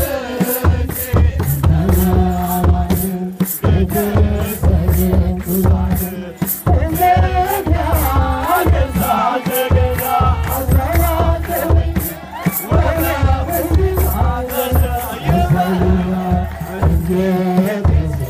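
Ethiopian Orthodox wereb chant: a choir of men singing together, accompanied by kebero drums and tsenatsel sistrums shaken in a steady beat of about two to three shakes a second.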